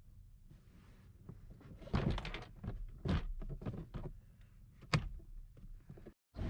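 Knocks and clicks of plastic car-interior parts being handled and fitted. The strongest come about two, three and five seconds in, with softer rustling between them.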